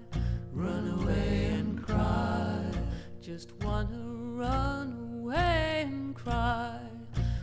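Slow, gentle music: a melody with notes that slide between pitches over a repeating low bass line.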